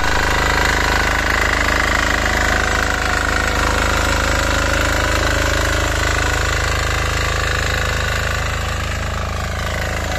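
KisanKraft 300D power tiller's diesel engine running steadily under load as its rotary tines dig into the soil, with a rapid, even firing beat.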